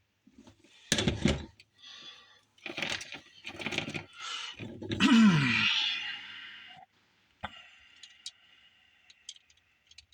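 A cable being worked in a hand wire stripper: scraping and crackling in several bursts as the insulation is gripped and pulled, then a few light clicks near the end.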